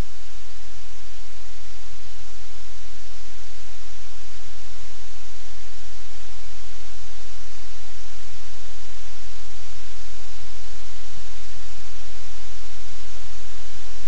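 Loud, steady static-like hiss with a low hum underneath, unchanging throughout.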